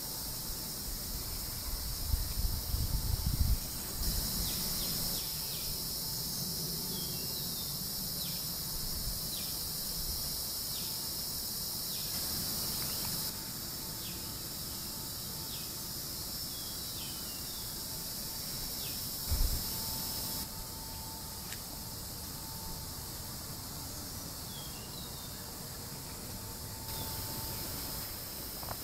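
Steady high-pitched insect drone that swells louder for several seconds at a time, with short falling bird chirps scattered throughout. Low rumbling bumps of wind or handling on the microphone about two to three seconds in, and once more about two-thirds through.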